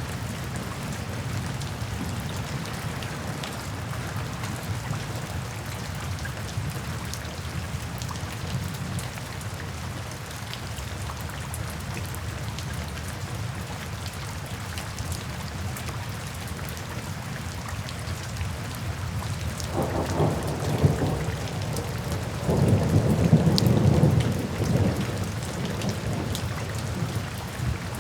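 Steady heavy rain with two low rolls of thunder near the end, the second louder and longer.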